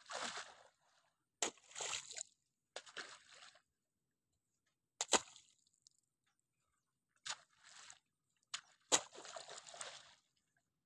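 A long-handled digging tool chopping into wet riverbank mud, about seven strikes at uneven intervals, each followed by a brief wet squelch and slosh as the mud is lifted.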